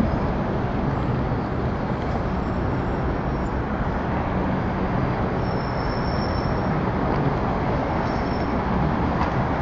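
Busy city street traffic: a steady wash of passing cars and taxis with a low rumble. A faint high whine rises out of it for about a second, roughly halfway through.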